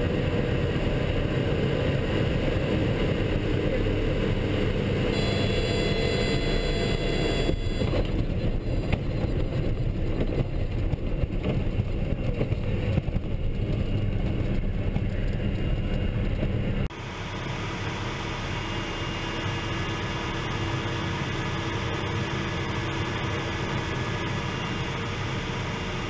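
Cockpit noise of a Pilatus PC-6 Turbo Porter's turboprop engine and propeller during a short mountain-strip landing: a loud, steady drone, with a high whine added for a few seconds from about five seconds in. About seventeen seconds in, the sound switches abruptly to a slightly quieter, steadier engine drone on another approach.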